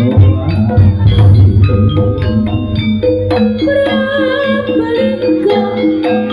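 Javanese jaranan music from a gamelan-style ensemble, with struck metal keyed instruments and drums, played loud through a large PA sound system during a sound check. A deep bass note is held under the melody and drops out near the end.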